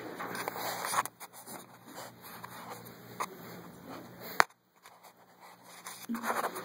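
Irregular rustling and scraping with a few sharp clicks; the sharpest click comes about four and a half seconds in and is followed by a short, nearly silent gap, then the rustling resumes near the end.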